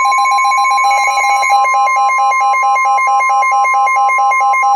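NOAA Weather Radio warning alarm tone, a steady single tone near 1 kHz, with a second, lower beep pulsing rapidly and evenly on top of it: the alert signal that comes before a warning message. Both cut off together at the end.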